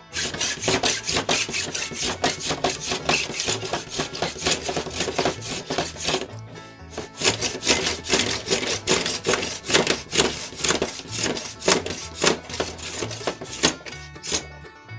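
Small block plane shaving excess glue off a glued rod blank in quick back-and-forth strokes, a few a second: a dry scraping rasp on wood. Music plays quietly underneath.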